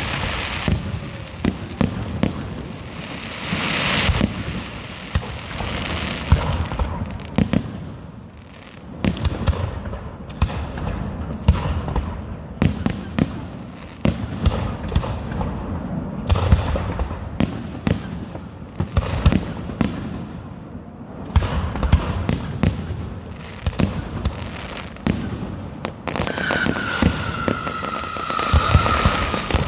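Fireworks going off: an irregular run of sharp bangs and crackles over stretches of hiss, with a falling whistle near the end.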